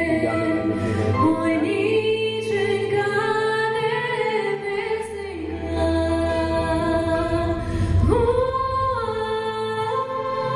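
A woman sings a Ukrainian song into a microphone, holding long notes, with a rising slide into a new note about eight seconds in.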